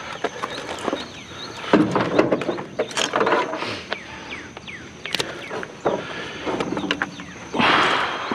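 Scrap being handled: a series of knocks and clatters with bursts of scraping or rustling as the heavy item is moved about.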